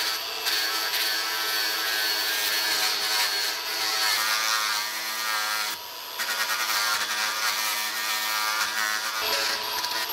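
Cordless angle grinder with an abrasive disc running against white oak and plywood, grinding wood with a steady high whine. It eases off briefly about six seconds in as the disc comes off the wood, then bears in again.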